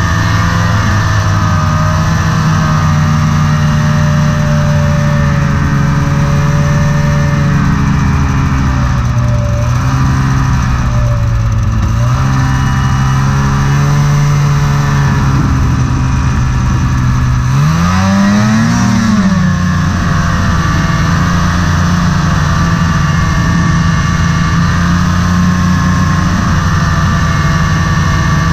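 Snowmobile engine running steadily under way, its pitch easing off and coming back up once, then a quick rev up and back down about two-thirds of the way through.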